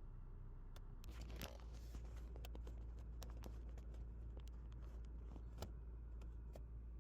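Scattered light clicks and rustling, like something being handled, over a low steady hum that comes in about a second in.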